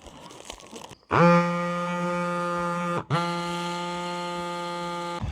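Small electric bike tyre pump running in two steady runs of about two seconds each, with a brief stop between, as it inflates a punctured gravel bike tyre.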